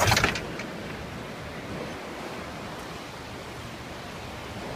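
Steady wash of wind and waves on the open sea, with a short loud burst of noise at the very start.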